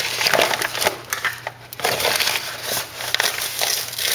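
Crunchy, crackling rustle of granulated sugar being scooped and poured into a measuring cup.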